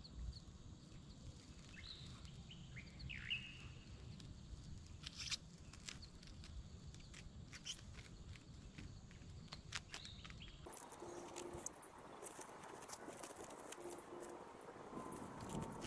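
Quiet outdoor ambience with scattered light taps and a few short bird chirps a couple of seconds in. A low rumble underneath cuts out abruptly about ten seconds in, giving way to a brighter hiss with more frequent taps.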